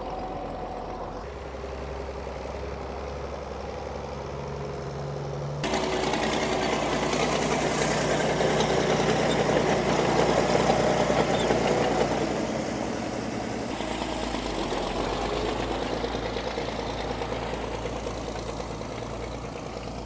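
International BTD 20 crawler tractor's Rolls-Royce diesel engine running steadily under load while pulling a six-furrow plough, louder through the middle stretch.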